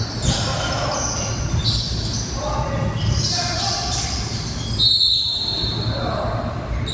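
Basketball game on an indoor court: the ball bouncing and shoes squeaking on the floor, echoing in a large hall, with voices in the background.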